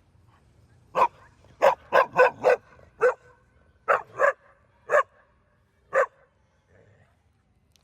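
A dog barking about ten times in short, irregular barks, some in quick runs, stopping about six seconds in.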